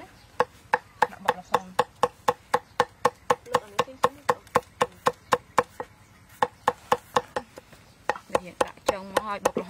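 Cleaver chopping red chilies on a thick round wooden chopping board: a steady run of sharp knocks, about three a second, with a short pause about six seconds in.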